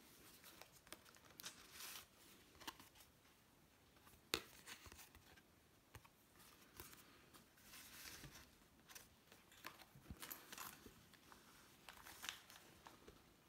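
Faint rustling and crinkling of paper pages, card tags and the fabric cover of a handmade junk journal as it is handled and opened, with scattered light taps and clicks, the sharpest about four seconds in.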